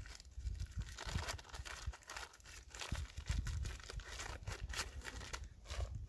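Crinkling and rustling of a small Zpacks stuff sack being handled and opened as a backpacking stove is worked out of it, in many quick, irregular crackles.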